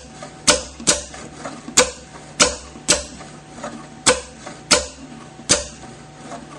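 Solenoid air valves and pneumatic valve actuators of a camless engine model clicking sharply as they switch the intake and exhaust valves open and shut, eight times at uneven intervals while the crankshaft is turned by hand.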